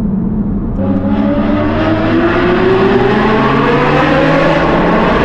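Ferrari 458's naturally aspirated V8 with a Novitec full exhaust accelerating hard, its note rising steadily in pitch from about a second in.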